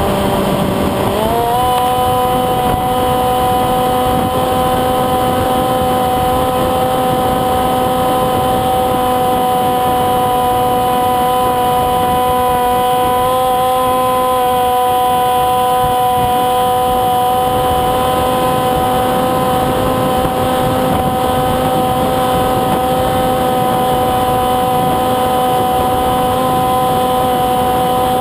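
Electric motor and propeller of a Windrider Ele-Bee2 foam RC plane in flight, a steady loud drone. The pitch steps up about a second in as the throttle opens, then holds level, over a noisy rush.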